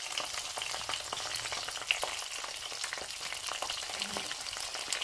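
Ripe plantain slices shallow-frying in hot oil in a pan: a steady sizzle peppered with many small crackling pops.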